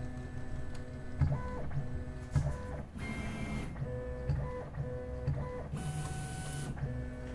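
Valkyrie HT 3D printer's stepper motors running an automatic bed-probing sequence. Their steady whining tones shift in pitch from one move to the next. There are two short knocks in the first few seconds.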